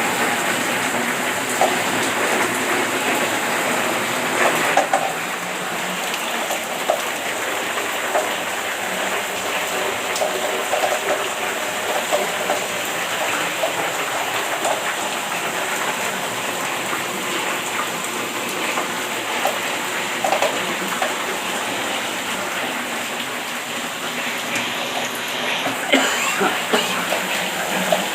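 Heavy rain in strong wind: a steady rushing hiss with scattered small knocks and ticks.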